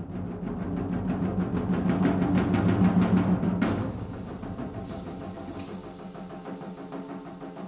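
Percussion ensemble playing: a low, rapid drum roll swells to a loud peak, then breaks off about three and a half seconds in as sustained metallic ringing takes over, punctuated by a couple of sharp struck accents.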